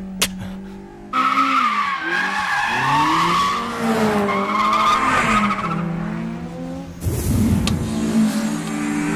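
Sound effects of a Toyota AE86 and a Honda Civic EG6 drifting. A steady engine note gives way about a second in to loud, wavering tyre squeal, with engine revs falling and rising. Near seven seconds there is a brief low rumble, then the engine note settles steady again.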